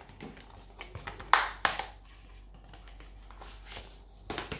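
Hands handling a Blu-ray case and its packaging: light plastic rustling with a couple of sharp clicks about a second and a half in, and a few knocks near the end.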